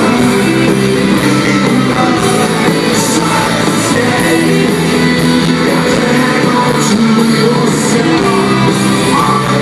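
Rock band playing live in an arena: distorted electric guitars, bass and drums with cymbal crashes, heard through the hall's echo, with a singing voice in the mix.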